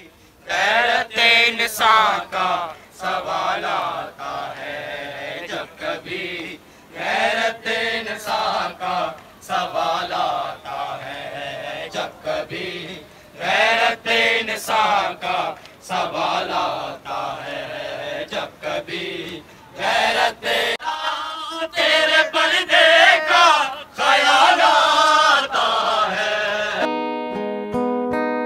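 A man chanting a noha, a Shia lament for Imam Hussain, into a handheld microphone, in melodic phrases with short breaks. Near the end, acoustic guitar music takes over.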